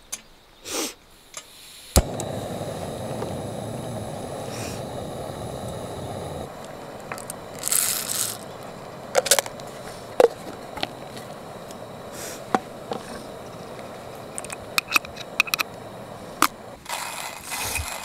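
Camping gas stove lit with a click about two seconds in, its burner then hissing steadily under a kettle. Coffee beans rattle into a hand coffee grinder around eight seconds in, followed by scattered clicks of handling, and the grinder's burrs start scraping near the end.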